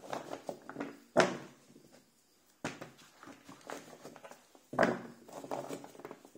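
Chunks of raw butternut squash being handled on a cutting board: three sharp knocks, about one, two and a half and five seconds in, with lighter clicks and rustling between.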